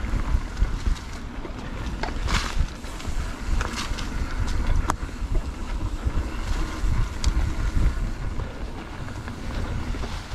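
Wind buffeting the microphone with a steady low rumble as a mountain bike rides a trail, with a few sharp clicks and knocks from the bike and trail.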